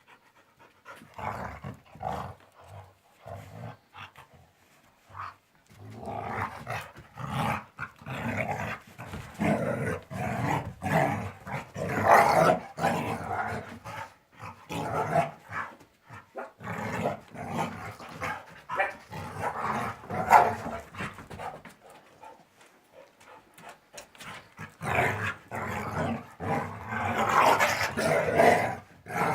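Two dogs, a shar-pei and a laika-type dog, play-fighting: growling in short irregular spells, with the odd bark. Sparse at first, it grows busy after a few seconds and pauses briefly later on.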